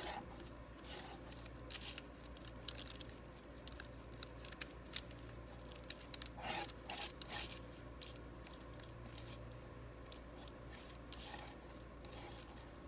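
Palette knife scraping, pressing and spreading thick oil paint across a plastic-covered palette: soft irregular scrapes and small sticky clicks, a few sharper ones in the middle, over a steady low hum.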